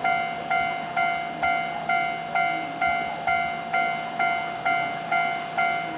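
Japanese railway level-crossing warning bell ringing in a steady, even rhythm of about two dings a second, each ding fading before the next. It signals that a train is approaching and the crossing is closed.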